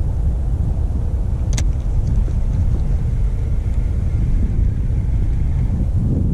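Wind buffeting the camera's microphone, a steady low rumble, with one sharp click about a second and a half in.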